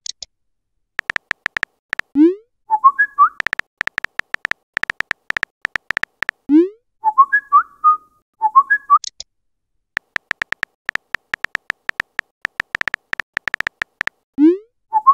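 Runs of rapid phone-keyboard typing clicks, broken three times by a messenger alert: a short rising swoop followed by a few chirpy whistled tones, marking a chat message being sent or received.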